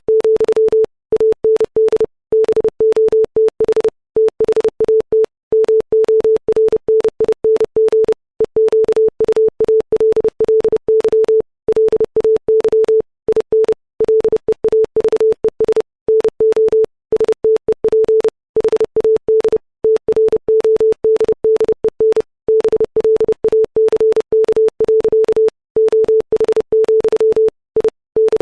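Morse code sent at 30 words per minute as a computer-generated 440 Hz sine-wave tone, spelling out the text of a poem. The tone keys on and off in quick dots and dashes, with short gaps between letters and longer ones between words, and a faint click at each start and stop.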